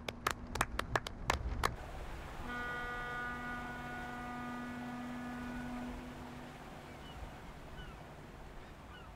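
Handclaps, about three a second, for the first second and a half. Then a ship's horn sounds one long, steady blast of about four seconds that fades away, followed near the end by a few faint short chirps.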